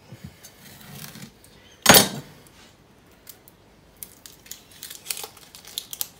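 A knife chops through an onion onto a wooden board with one sharp knock about two seconds in. From about four seconds on come scattered small clicks and rustles as the dry onion skin is peeled off by hand.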